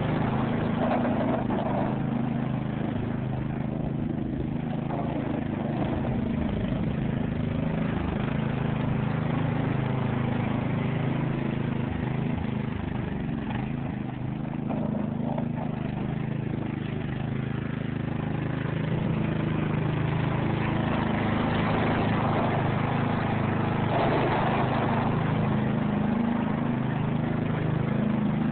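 Riding lawn mower's engine running steadily, easing off slightly about halfway through and picking back up.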